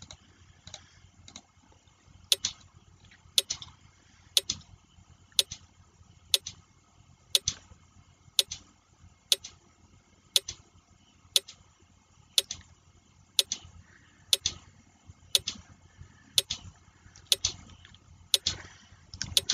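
Countdown timer sound effect ticking evenly, about once a second, like a clock.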